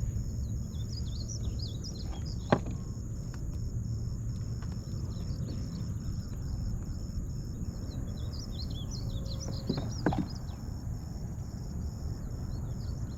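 Outdoor lakeside ambience: birds chirping in two spells over a steady low rumble of wind and water, with a steady high drone. Two sharp knocks, the louder about two and a half seconds in and the other about ten seconds in.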